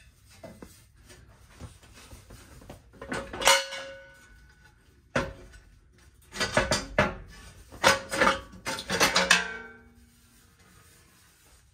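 Metal transfer case shield clanking and scraping as it is worked free and lowered from under the truck. A cluster of clanks comes about three seconds in, then a longer run of metallic clatter with a brief ring from about six to nine and a half seconds.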